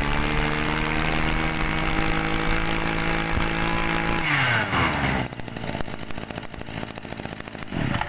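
Mitsubishi TL23 two-stroke brush-cutter engine held at high revs, then throttled back about four seconds in and dropping to a rattly idle.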